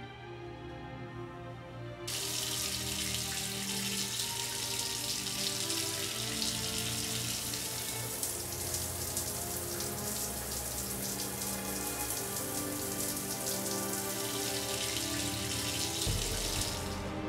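Shower running from a chrome thermostatic mixer: the hiss of the spray starts abruptly about two seconds in, runs steadily, and stops shortly before the end. Soft background music plays underneath.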